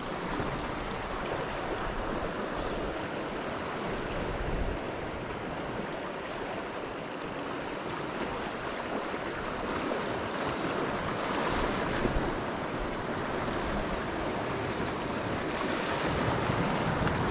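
Sea water washing and lapping against shoreline rocks, a steady rushing wash that swells a little now and then, with some wind on the microphone.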